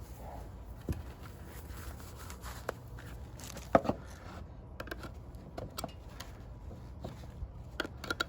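Scattered light clicks and taps from handling a wooden box and taking off its small clasps, with one sharper knock a little under four seconds in, over a low steady hum.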